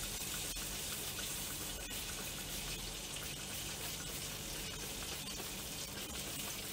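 Steady low hiss and sizzle from a hot charcoal kettle grill as orange juice is spritzed from a trigger spray bottle over a turning rotisserie turkey breast, with a few light clicks.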